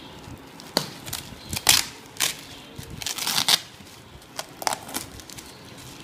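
Packaging being handled, rustling and crackling in a series of short bursts, the loudest a longer crinkle a little past the middle.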